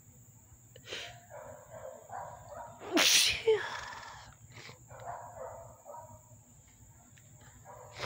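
A woman's loud sneeze about three seconds in, with softer breathy sounds before and after it, part of a sneezing fit set off by dust tickling her nose.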